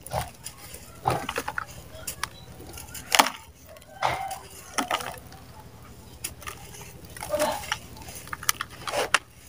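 Dry mud balls crushed and crumbled by hand: irregular gritty crunches and crackles as the balls break, with powder and grit sifting down into a plastic tub. The louder crunches come about a second in, around three and four seconds, and near the end.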